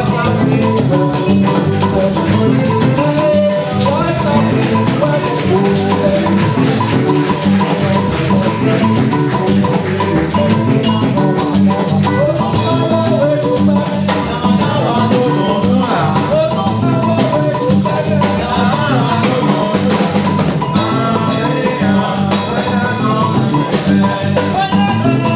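Music with drums and a steady, repeating beat, played without a break.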